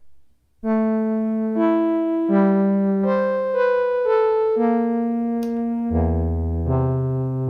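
Arturia MicroFreak synthesizer playing a factory preset with an electric-piano-like sound: a slow run of held notes and chords. Low bass notes join about six seconds in, after a short click at the very start.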